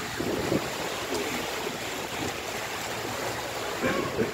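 Steady rush of water and wind noise aboard a moving river cruise boat.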